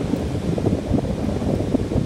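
Heavy rainstorm: a steady, low, crackling rush of rain and wind, with wind buffeting the microphone.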